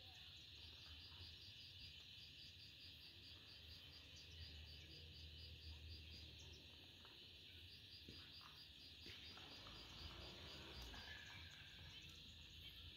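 Faint outdoor insect chorus: a steady high trill with a repeating chirp about three times a second that pauses for a while about seven seconds in, then resumes.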